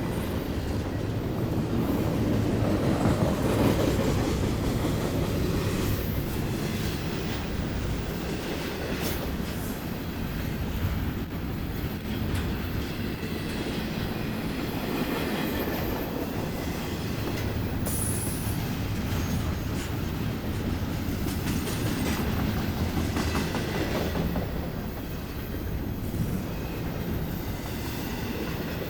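Freight train rolling past with a steady rumble of its cars on the rails, scattered clacks of wheels over the rail joints, and a brief high wheel squeal about two-thirds of the way through.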